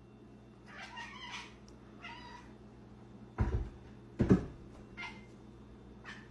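Domestic cat meowing a few times, quietly, with two dull thumps in the middle.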